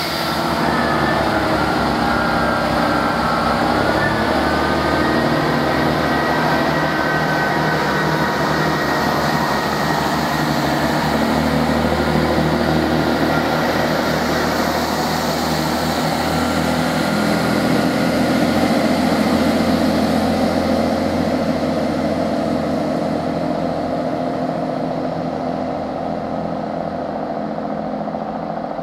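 Great Western Railway Class 165 and Class 166 Turbo diesel multiple units running past, their underfloor diesel engines giving a steady drone of several pitches. The sound fades gradually near the end as the train draws away.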